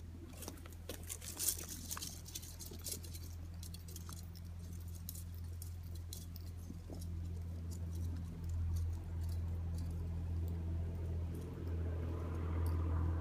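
Footsteps crunching on dry leaf litter and twigs on a dirt path: sharp crackles, dense for the first few seconds and then thinning out. Under them runs a steady low rumble that grows a little louder in the second half.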